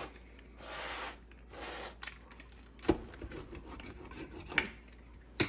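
Rotary pizza cutter rolling through a crisp, crunchy pizza crust on a cutting board: a few short rasping crunches in the first two seconds, then a few sharp clicks and knocks.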